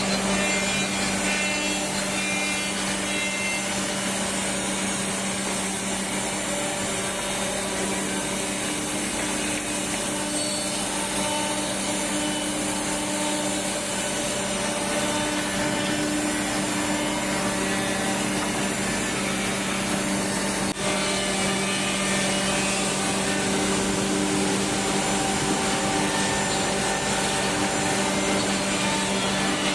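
CNC three-head mortising machine running, its router spindle motors giving a steady whine while the bits mill mortises into wood.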